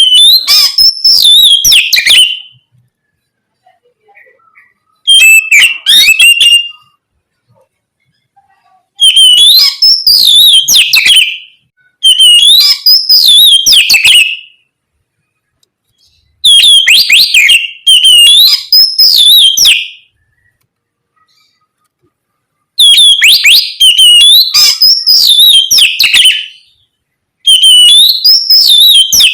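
Oriental magpie-robin (kacer) singing loud, clear whistled phrases in bursts of two to three seconds with short pauses between, about seven phrases in all.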